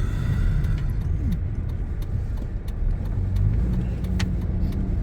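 Car cabin noise while driving: a steady low rumble of engine and tyres heard from inside the car, with a few faint ticks.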